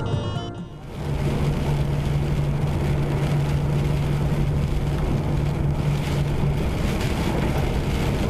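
Steady in-vehicle driving noise on a wet motorway: a constant low engine hum under a haze of tyre and rain noise, starting about a second in.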